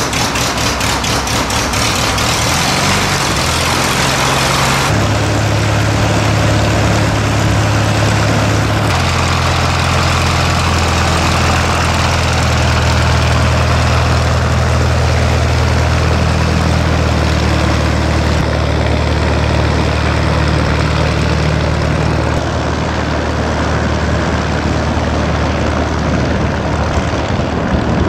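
Van's RV-8 light aircraft's piston engine and propeller running at low power. The note pulses roughly for the first couple of seconds, then steadies, with the engine note changing about five seconds in and again near nine seconds as the plane taxis away.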